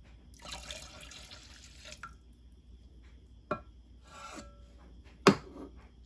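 Vinegar poured from a plastic measuring cup into a glass measuring jug of liquid soap mixture, a splashing stream lasting about a second and a half. Then a few drips and sharp taps on the glass jug, the loudest one near the end.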